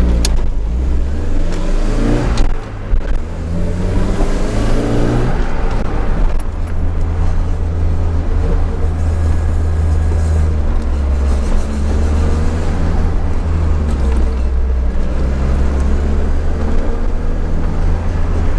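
Nissan 200SX S13's turbocharged 1.8-litre CA18DET four-cylinder engine, heard from inside the cabin, revving up through the gears in the first five seconds with a short break in the pull, then running steadily at cruising speed.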